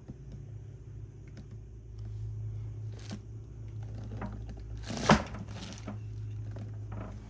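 Small handling clicks and crinkling over a steady low hum, with one sharp knock about five seconds in.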